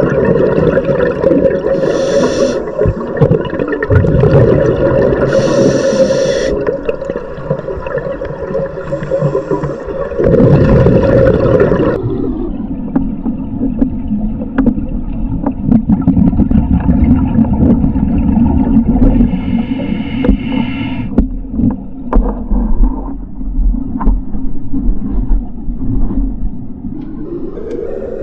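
Underwater sound on a scuba dive: a steady drone of boat engines carried through the water, which shifts lower about twelve seconds in and rises near the end, over the diver's regulator breathing, with a few short hissing inhalations and bubbling.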